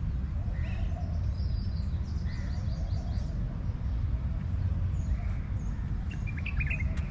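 Small birds chirping over a steady low background rumble: a quick run of high, repeated chirps about a second and a half in, and a short burst of chirps near the end.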